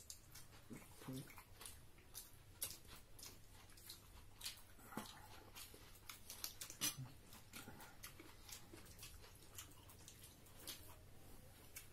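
Faint, scattered small clicks and smacks of people eating with their hands: fingers working rice on plates, and chewing.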